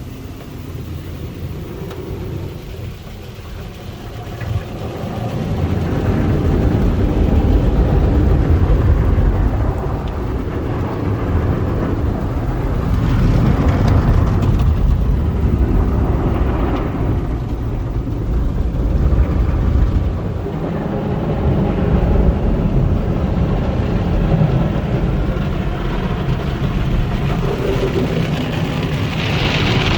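PECO car wash tunnel equipment working over a car: a loud, continuous wash of noise that grows louder about five seconds in.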